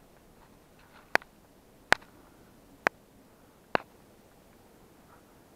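Woodpecker pecking at wood: four single sharp knocks, spaced unevenly about a second apart.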